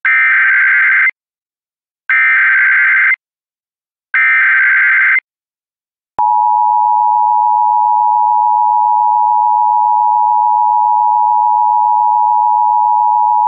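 Emergency Alert System signal: three one-second bursts of screeching SAME header data tones, which encode the alert's details. At about six seconds the steady two-pitch EAS attention tone starts, announcing that the spoken alert message follows.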